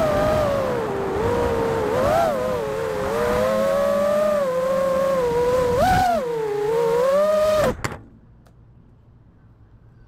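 FPV racing quadcopter's brushless motors and propellers whining, the pitch rising and falling as the throttle changes. The whine cuts off suddenly about eight seconds in as the motors stop, leaving only a faint low hum.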